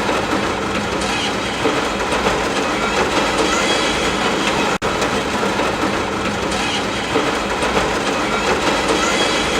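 Steady rain ambience: a dense, even hiss over a low rumble, cutting out for an instant about halfway through.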